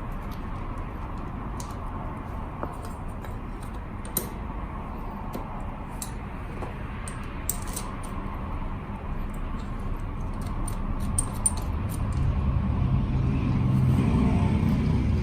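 Scattered light metallic clicks and clinks of hand tools and parts over a steady low rumble, with a louder low hum building near the end.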